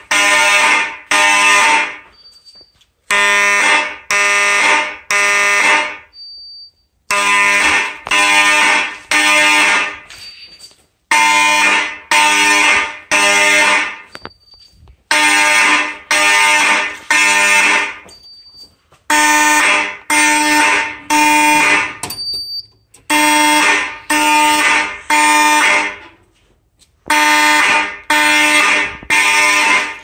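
Horns of a vintage fire alarm system, among them a Faraday 6226-W electromechanical horn strobe and a Federal Signal Vibratone horn, sounding loudly in code 3 (temporal-three): groups of three blasts with a pause after each group, about every four seconds. A short high beep sounds in each pause.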